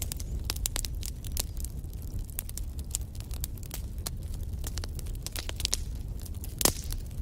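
Wood fire burning in a fireplace: a steady low rumble of flame with frequent sharp crackles and pops, one louder pop near the end.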